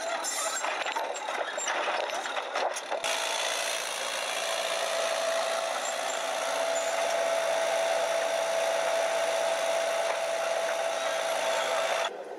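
Tracked mine-clearing vehicle with a front mine roller: clattering at first, then a steady mechanical whine holding one tone for about eight seconds, which cuts off suddenly near the end.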